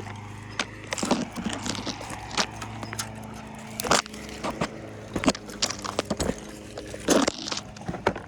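An engine running steadily with a low hum, under many irregular sharp clicks and knocks.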